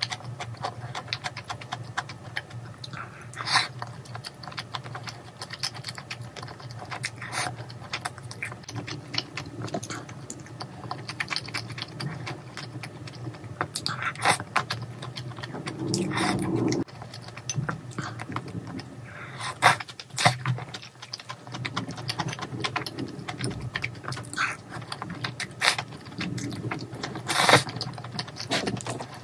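Eating sounds: chewing and slurping noodles, with sharp clicks of wooden chopsticks against the bowl.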